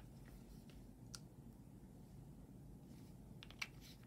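Near silence: room tone with a few faint, short clicks, about one second in and twice more near the end.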